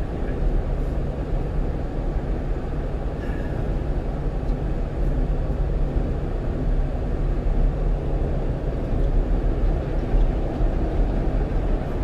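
Steady road and engine noise of a 1-ton truck cruising at highway speed, heard from the cab: a low, even drone with tyre rumble.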